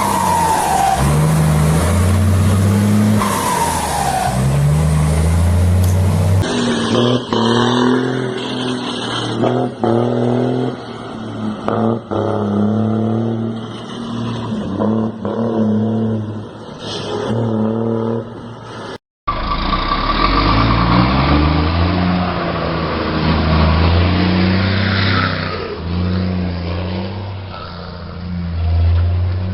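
Iveco truck diesel engines with a 'pente' comb in the turbo intake, accelerating through the gears: the engine note climbs and drops back again and again as each gear is changed. Twice in the first few seconds a turbo whistle falls in pitch. The sound changes abruptly about 6 seconds in and again about 19 seconds in, with a brief dropout at the second change, as different trucks follow one another.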